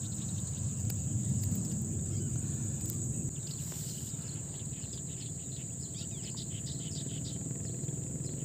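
Steady high-pitched insect buzzing with a few faint bird chirps from about three and a half to five seconds in, over a low rumble.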